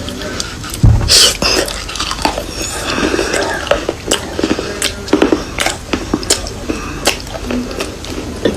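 Close-miked crunching of dry chalk and clay pieces: a run of sharp, irregular snaps and crackles, the loudest with a dull thump about a second in.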